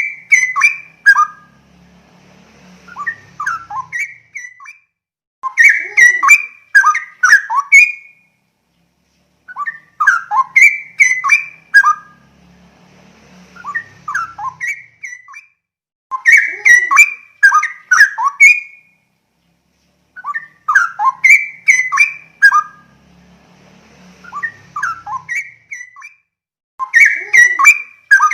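Straw-headed bulbul (cucak rowo) singing loud, bubbling warbled phrases of quick gliding notes, one phrase every five seconds or so, with softer, quieter phrases in the gaps between.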